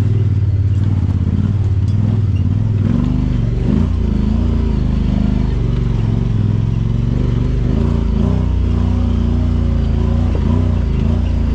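Honda Pioneer 1000-5 side-by-side's engine running through its HMF aftermarket exhaust, the engine note rising and falling as it climbs a rocky trail. A few knocks and rattles come from the machine jolting over the rocks.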